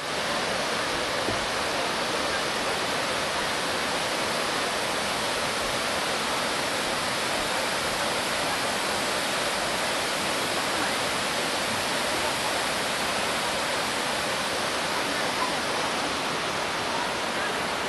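Korbu waterfall on Lake Teletskoye: steady rushing of falling water, an even roar with no breaks.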